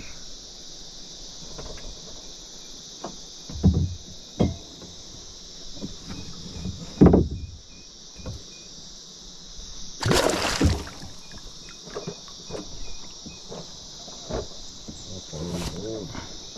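Steady high-pitched drone of insects, with scattered dull thumps and knocks and a brief rushing noise about ten seconds in.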